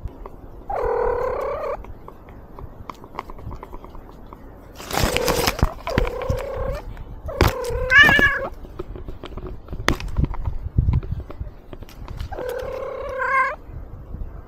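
Domestic cat meowing four times, very close to a collar-mounted microphone; the third meow rises in pitch. Knocks and rustling between the meows, loudest around the middle.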